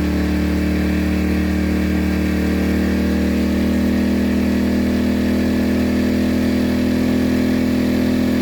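Harbor Freight Predator 1400 inverter generator's small engine running steadily under an electrical load being stepped up from about 600 to 1100 watts. Its pitch creeps up slightly about three seconds in as it works harder to carry the load.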